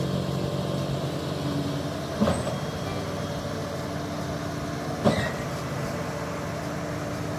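Truck-mounted concrete boom pump's diesel engine running steadily while the hydraulic boom is moved. A short sharp clunk with a hiss comes twice, about every three seconds.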